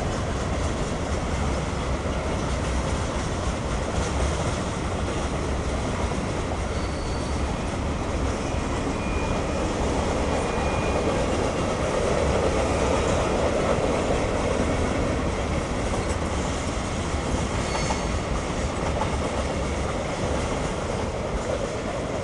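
Freight cars of a CSX mixed freight train rolling past, steel wheels running steadily over the rails, with a few brief high squeals. The noise eases off near the end as the last cars go by.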